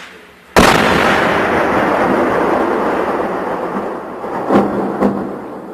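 A tank shell explodes with a sudden, very loud blast about half a second in, and its rumble rolls and echoes, dying away over about four seconds. Two more sharp cracks follow near the end.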